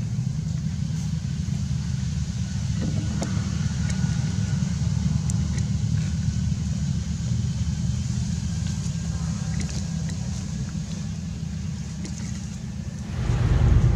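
A steady low rumble with faint scattered clicks over it, swelling louder shortly before the end.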